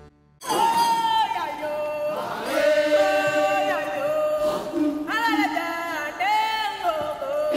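Music track: after a brief gap, a group of voices chants and sings in unison with almost no drums or bass, the held sung notes rising and falling.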